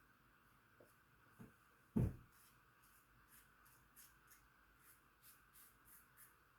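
A single low thump about two seconds in, then a run of short scratchy strokes, about three a second: a Gem push-button single-edge safety razor scraping through stubble.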